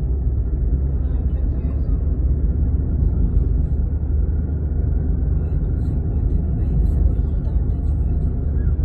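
Steady low rumble of a car driving at speed, heard from inside: road and wind noise.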